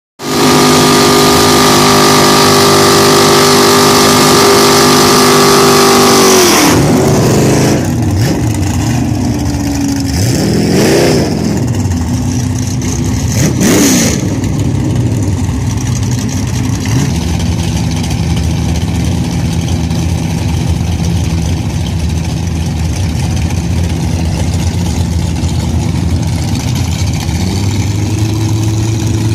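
Chevrolet Nova drag car's engine held at high revs for about six seconds, then dropping off. Two quick throttle blips follow, then it settles into a steady idle at the starting line, the idle rising a little near the end.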